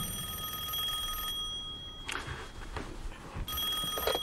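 Landline telephone ringing: one ring ends about a second in, and the next begins near the end.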